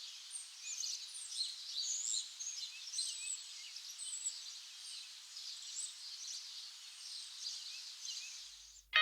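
Several birds chirping and singing at once: a dense chorus of short, high calls over a faint outdoor hiss, fading out near the end.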